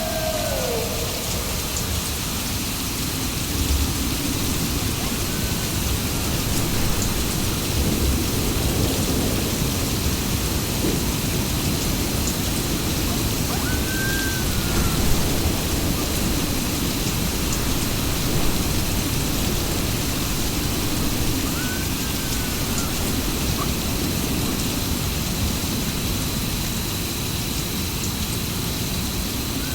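Steady heavy rain with low rolling thunder. Short rising-and-falling wolf howls come through about every eight seconds, with one longer falling howl right at the start.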